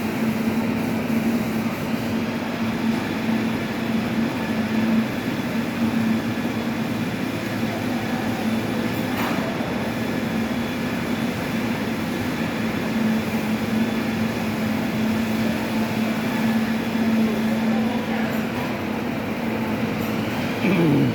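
Heavy sawmill machinery running steadily: a constant hum under a dense grinding rush, with a brief falling tone near the end.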